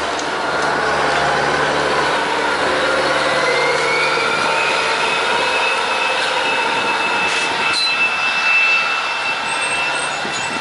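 Jet airliner's engines running with a steady roar and a high whine that rises in pitch about three seconds in and then holds steady.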